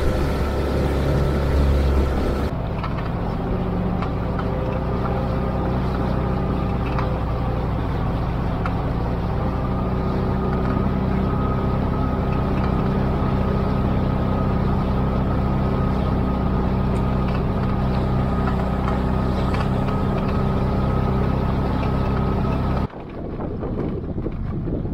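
A boat's motor running steadily under way at an even pitch. It cuts off suddenly near the end, leaving wind on the microphone.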